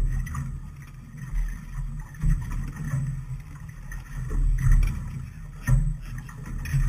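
Fishing boat on the river: an uneven low rumbling that swells and fades several times, with a few faint knocks.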